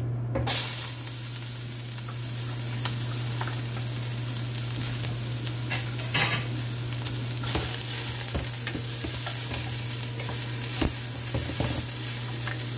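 Chopped onions dropped into hot oil in a stainless steel pan, which catches with a sudden sizzle about half a second in and keeps frying with a steady hiss. Near the end a wooden spoon stirs them, adding scattered clicks.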